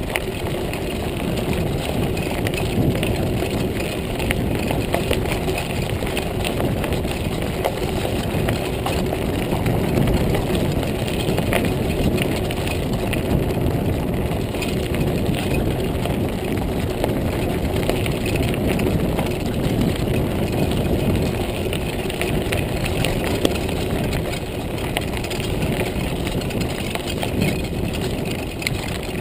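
Montague Paratrooper Pro folding mountain bike rolling steadily over a gravel trail: continuous tyre rumble and crunch with many small rattles and ticks.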